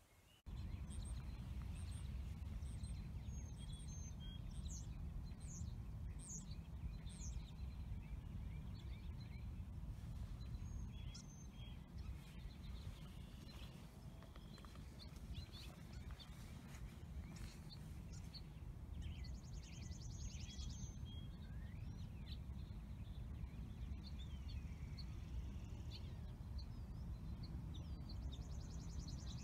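Outdoor spring ambience: several songbirds chirping and calling, with fast high trills about two-thirds of the way in and again near the end, over a steady low rumble.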